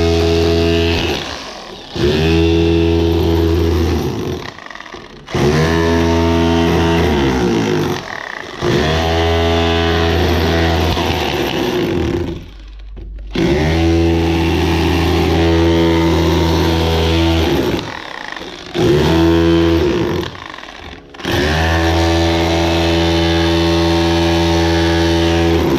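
Electric hammer drill with a chisel bit chipping out the mortar bed joint beneath concrete blocks, run in about seven bursts of one to five seconds, its pitch rising as each burst starts and falling as it stops.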